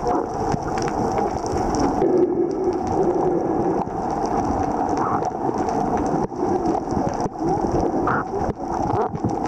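Muffled underwater noise picked up by a submerged camera: a steady low rumble of moving water with wavering hum and scattered small clicks.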